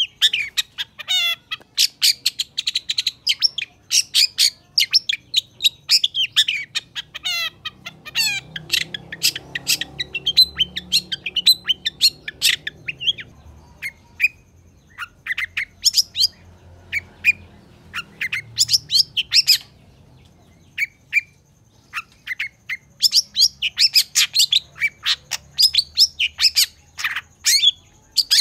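Long-tailed shrike (cendet) singing in fast runs of short, sharp chattering notes and quick trills of sliding notes. The calls thin out to scattered notes in the middle, then pick up into a dense run again near the end.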